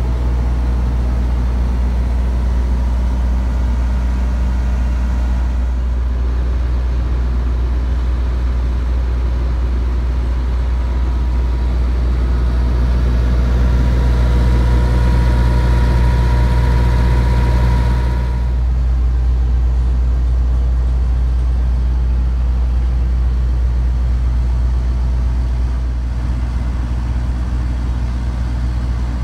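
MQ Power WhisperWatt 45 diesel generator's Isuzu four-cylinder diesel running at a steady speed, a constant low drone. Through the middle it gets louder, with a steady high whine added, then it eases back.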